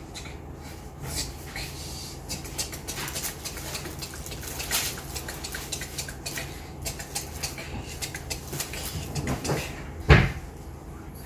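Handling noises: a run of small clicks, taps and rustles of things being moved about, with one louder knock about ten seconds in.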